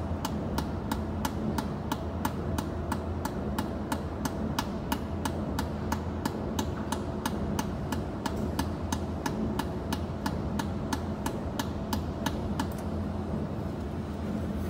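Pulsed jewelry laser welder firing on stainless steel, a sharp snap with each pulse at about four a second, over the steady hum of the machine. The pulses stop near the end.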